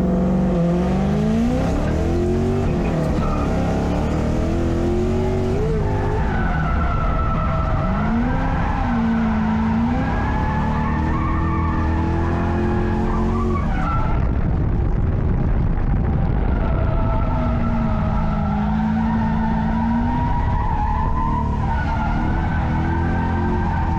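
Drift car engine revving up and down through repeated slides, over the steady noise of tyres skidding and squealing.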